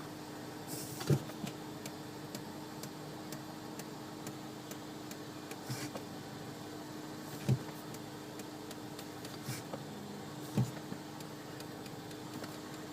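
Volvo XC60 giving off a run of light ticks while the brake pedal is pressed, over a steady hum, with three dull knocks about a second in, midway and near the end.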